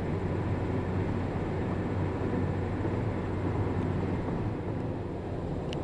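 Steady low road and engine noise of a car driving on a highway, heard from inside the cabin, with a single faint click near the end.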